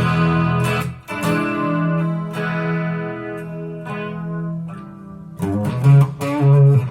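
Clean electric guitar played through a Zoom G5n multi-effects pedal with its chorus effect switched on. A chord is struck at the start and again about a second in and left ringing as it slowly fades, then a few quicker strums come near the end.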